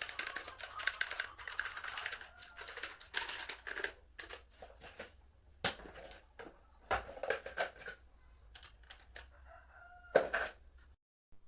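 Aula F2067 mechanical keyboard keys clicking in fast typing for about four seconds, then slowing to scattered clicks mixed with a few short pitched squeaks. The sound cuts out abruptly near the end.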